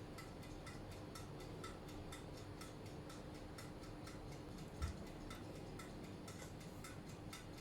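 Faint, fast, regular ticking, several ticks a second, with a soft low thump about five seconds in.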